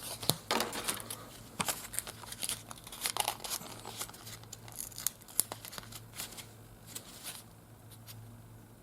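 Crinkling and tearing of a trading-card-style magnet pack's wrapper as it is torn open and handled, a run of scattered sharp rustles that thins out and gets quieter about seven seconds in.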